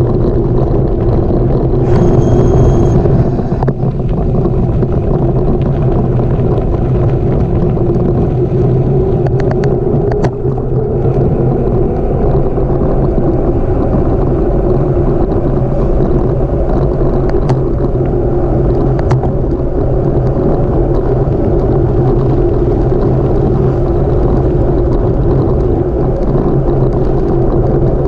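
Steady rumble of bicycle tyres rolling over a gravel road, with wind on a bike-mounted camera's microphone. A few faint clicks and rattles come through, and a short high-pitched squeal sounds about two seconds in.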